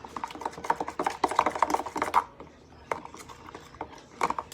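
A spoon stirring glue and activator in a bowl as the mixture begins to turn into slime: fast clicking and scraping against the bowl for about two seconds, then a few scattered knocks.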